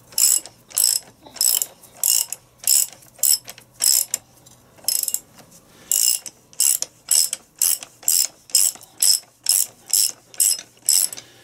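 Hand ratchet clicking in quick repeated strokes, about two a second, as it winds the forcing screw of a gear puller drawing a part off a Land Rover R380 gearbox's main shaft. The strokes pause briefly about four seconds in, then carry on.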